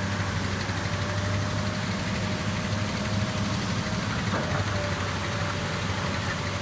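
Komatsu hydraulic excavator's diesel engine running steadily, with a faint thin whine above the engine note and a light knock a little over four seconds in.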